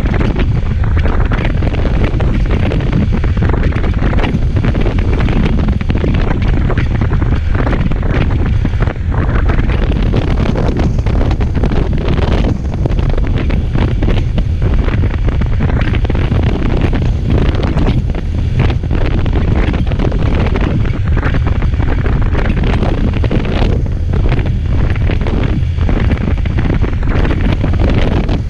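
Steady, loud wind buffeting the microphone of a moving motorcycle, with vehicle noise underneath.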